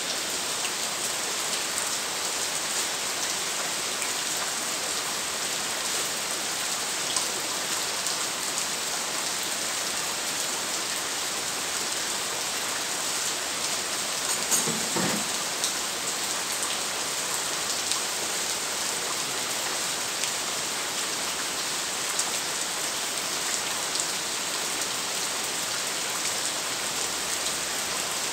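Steady rain falling on surfaces, an even hiss with scattered drop ticks, and one brief knock about halfway through.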